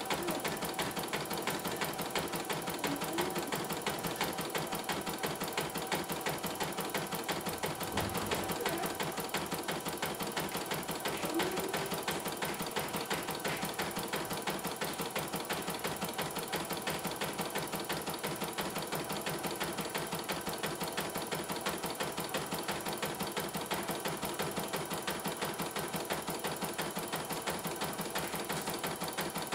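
CNY E900 portable computerised embroidery machine stitching a design: a fast, even run of needle strokes as the hoop steps under the needle. It is running smoothly on its test stitch-out after a mainboard replacement.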